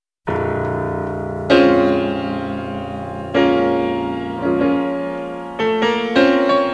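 Background music on piano: slow chords and notes struck every second or so and left to ring, starting just after a moment of silence.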